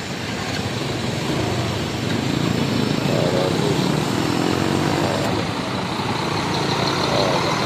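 Large bus's diesel engine running close by, over a steady din of traffic, with faint voices in the background; the sound grows slightly louder.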